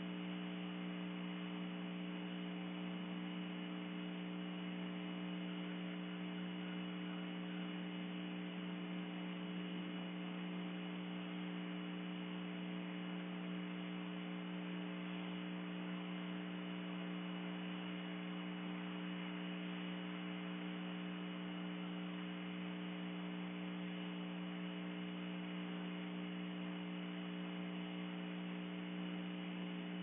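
Steady electrical mains-type hum with an even hiss, unchanging in pitch and level.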